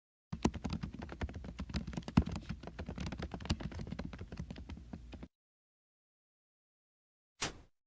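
Fast typing on a computer keyboard: a quick run of key clicks that stops abruptly about five seconds in, followed after a pause by a single click near the end.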